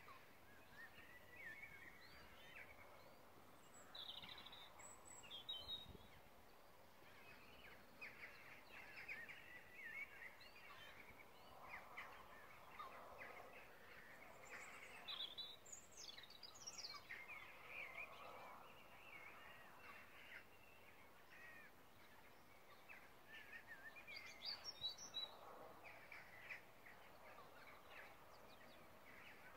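Faint countryside ambience with scattered bird chirps and calls coming in short clusters, over soft rustling.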